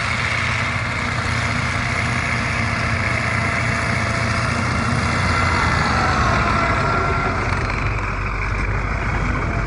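Engine of a heavy tracked over-snow vehicle running steadily, with a whine that shifts in pitch around the middle.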